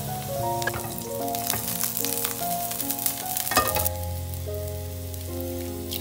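Oil sizzling and crackling around chopped green onion in a hot frying pan, thick with small pops for the first few seconds and one louder crack a little past halfway, then settling to a softer sizzle. Calm background music plays throughout.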